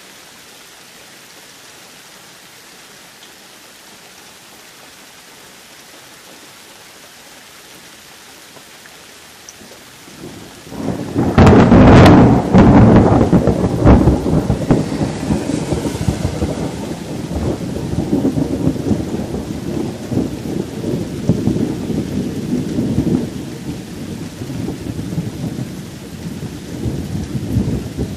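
Steady rain falling, then about ten seconds in a loud thunderclap cracks overhead and rolls on as a long, uneven rumble of thunder over the rain.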